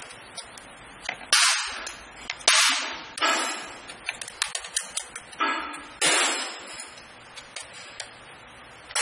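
Sharp metallic clinks and knocks from a stainless-steel vial filling and capping machine as it is being worked on, with fainter ticks in between. About six of the hits are louder and ring out for about half a second each.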